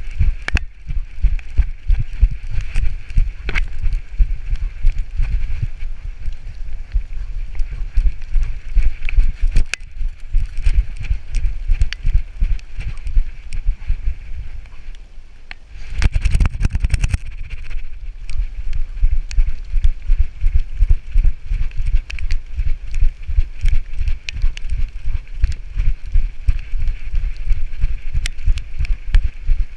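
A harness-mounted camera on a running Labrador retriever: rapid thuds from her strides jolting the mount, with her paws rustling through fallen leaves. The running eases off about fourteen seconds in, then a louder burst of jostling comes a couple of seconds later before the steady thudding resumes.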